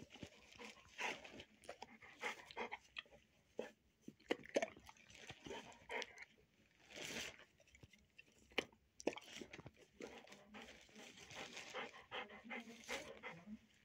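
A dog panting in short, irregular breaths, with a few small clicks mixed in.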